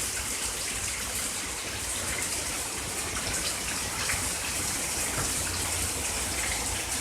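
Steady rush of water falling and running off in the wake of a hailstorm.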